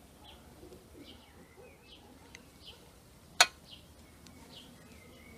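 A small bird chirping repeatedly, short high chirps about once a second. One sharp clink of a metal spoon comes about three and a half seconds in.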